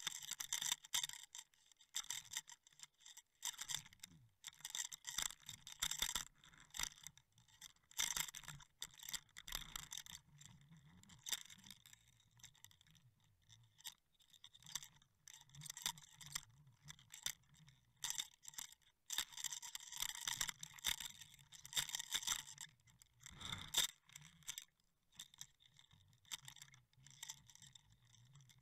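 Faint irregular crackling and scratching in clusters of rapid clicks, over a low steady hum, as picked up by a camera filming underwater.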